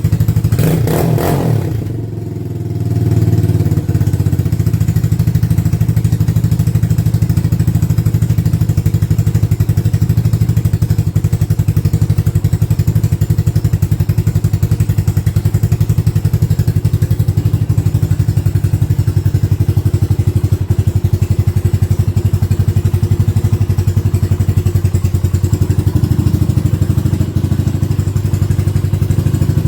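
1985 Honda ATC 200X three-wheeler's single-cylinder four-stroke engine running steadily, with a short burst of extra noise about a second in and a brief dip in level just after. The engine has had its sunken carburetor float replaced and runs nicely without leaking fuel.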